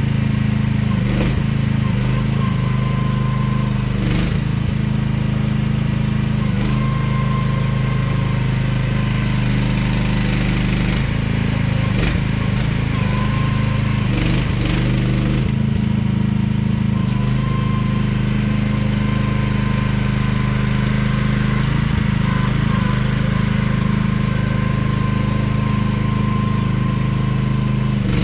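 AGT QH12R mini excavator's small engine running steadily, with a thin whine that comes and goes and a few knocks as the machine works.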